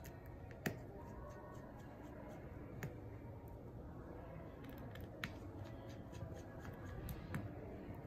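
Light clicks and taps of precision tweezers and small tablet parts being handled and pressed into place during reassembly. Four sharper clicks come a couple of seconds apart among fainter ticks.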